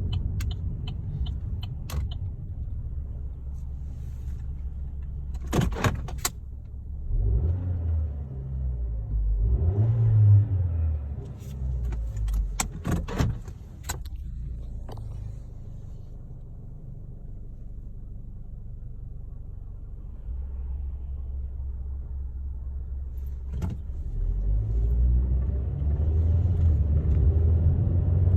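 2013 Chevrolet Sonic heard from inside the cabin while driving. Its engine and road rumble rise and fall, with a few sharp clicks or rattles around six and thirteen seconds in. The engine runs without the complained-of misfire showing.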